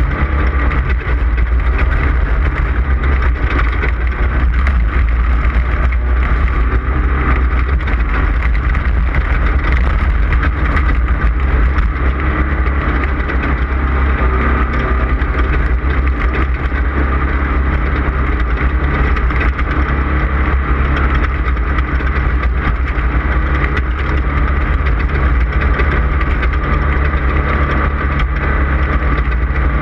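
Off-road race car's engine running hard at a steady pitch, heard from onboard the car with a strong low rumble.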